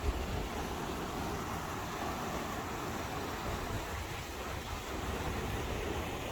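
Steady rushing of a river's flowing water, with a low rumble underneath and a brief knock just at the start.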